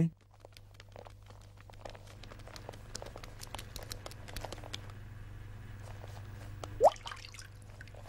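Cartoon sound effect of a leaky faucet dripping: faint scattered drips over a low steady hum, with one louder drop rising in pitch near the end.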